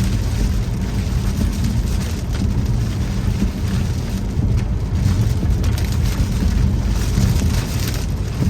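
Rain hitting a pickup truck, heard from inside the cab while driving, over a steady low rumble of road and engine noise.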